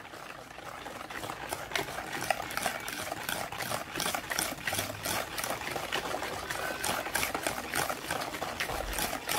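Wire whisk beating eggs, sugar and oil in a plastic bowl: quick, steady clicking strokes against the bowl as the mixture is whisked until the sugar dissolves.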